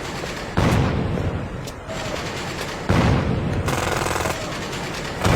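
Loud sudden bangs, one about half a second in and another about three seconds in, each trailing off over a second or two, of the gunfire kind.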